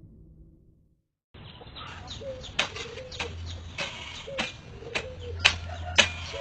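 An animal's short calls that dip in pitch, repeated several times, over sharp clicks about every half second.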